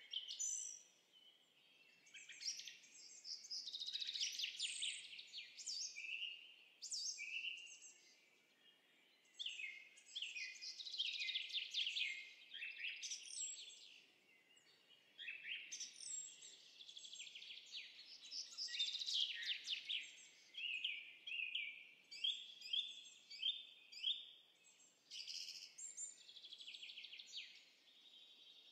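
Birdsong sound-effect track: birds chirping in quick trills and repeated high phrases, almost without pause.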